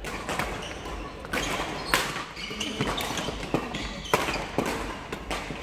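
Badminton doubles rally: rackets striking the shuttlecock in a run of sharp hits, the loudest about two seconds in and about four seconds in, echoing in a large sports hall, with players' footfalls on the court between hits.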